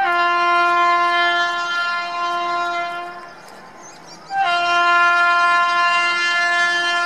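Train horn sounding two long, steady blasts of about three seconds each, with a pause of about a second between them.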